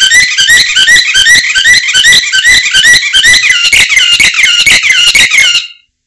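Domestic canary singing a fast, unbroken run of short rising and falling chirps, about four or five a second, cut off suddenly near the end.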